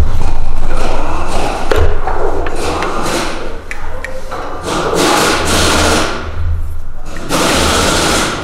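Thuds, clicks and metal-on-metal handling noise as a piston with its connecting rod is worked out of a Kia S6D 1.6 engine block, with a steady low hum underneath.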